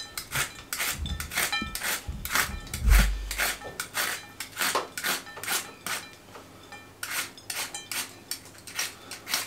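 Y-peeler scraping the ridged skin off a bitter gourd (karela) in quick repeated strokes, about two or three a second, with a short lull about two-thirds of the way through. A dull low bump about three seconds in.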